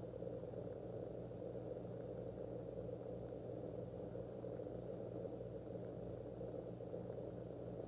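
A machine running steadily: a low electrical hum with a whirring noise over it and no change in pitch or level.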